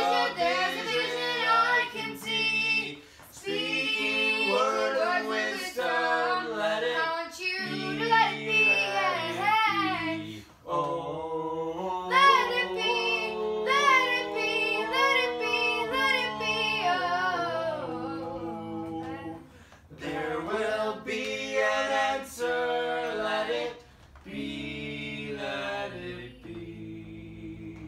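A trio of two male and one female voices singing a cappella in harmony, with no instruments, phrase by phrase with short breaths between lines, growing quieter near the end.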